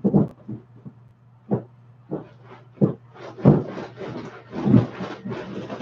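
Large vinyl inflatable horse creaking, squeaking and thumping under a rider's shifting weight, in irregular bouts about once or twice a second.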